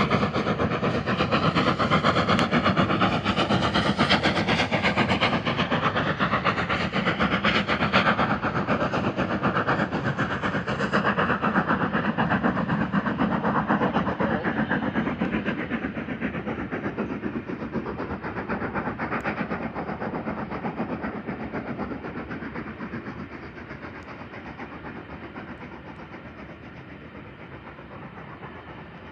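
Steam-hauled train rolling across a viaduct, its wheels clattering on the rails. The sound holds steady for the first half, then fades away as the train draws off.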